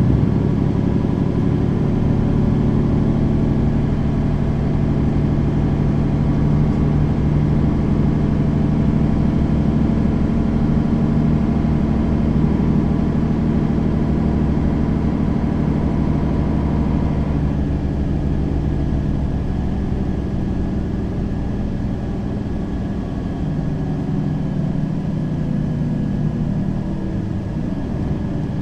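Mercedes-Benz Citaro facelift city bus engine running steadily while the bus is under way. A little over halfway through, the higher engine noise falls away and it carries on lower and slightly quieter, as when the driver eases off the throttle.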